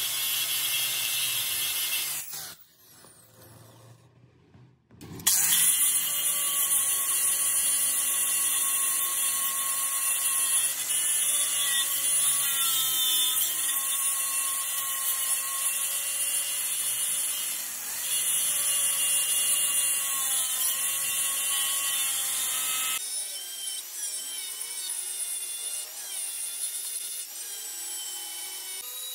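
A power tool or workshop machine running with a steady, high whine over a hiss. It stops for about three seconds near the start, then starts again.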